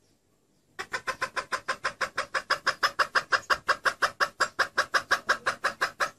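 Junglefowl hen giving a fast, even run of short clucks, about six a second, starting about a second in and stopping abruptly. This is a hen's call played as a lure to draw in wild junglefowl cocks.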